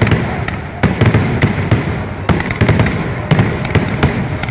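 Fireworks display: a rapid string of sharp bangs, several a second, over a continuous rumble and crackle.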